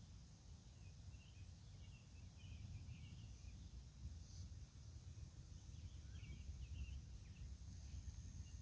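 Faint pre-dawn outdoor ambience: a steady low rumble with a thin high-pitched hum, and scattered faint chirping in two short spells.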